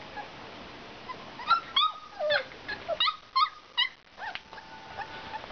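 Five-week-old English Mastiff puppies whimpering and yipping: a quick run of short, high whines that starts about a second and a half in and stops near the end.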